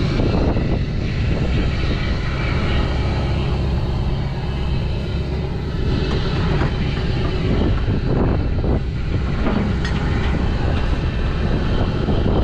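An engine running steadily, with a few knocks about halfway through.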